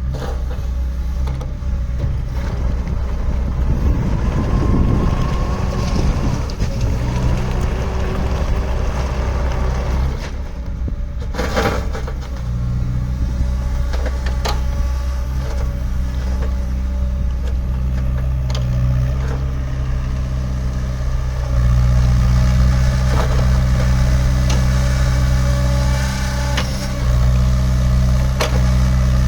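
JCB 48Z-1 mini excavator's diesel engine running steadily, with a few knocks a little over a third of the way in and the engine getting louder about two-thirds of the way through.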